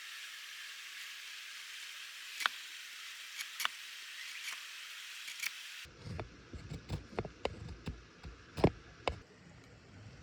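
Open wood fire hissing steadily with a few sharp crackles. About six seconds in the sound cuts to a run of knocks and clatter, the loudest a single sharp knock near the end.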